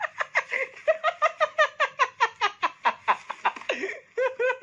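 A person laughing hard: a long run of quick, high-pitched 'ha' pulses, about seven a second, with a short break near the end.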